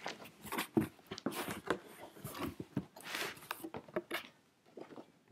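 A cardboard shipping box and its packaging being opened and handled by hand: irregular rustling, scraping and light knocks.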